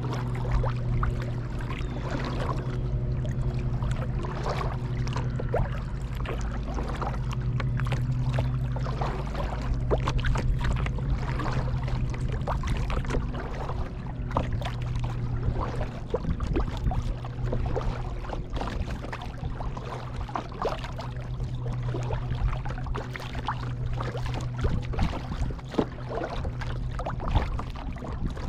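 Kayak paddle dipping and water dripping and splashing in irregular small splashes, over a steady low hum.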